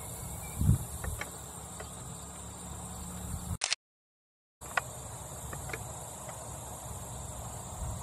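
Steady outdoor background with a constant high insect-like hum and a low rumble, broken by a few light mechanical clicks and one dull thump from camera handling near the start. About halfway through, the sound drops to a second of dead silence, then resumes the same.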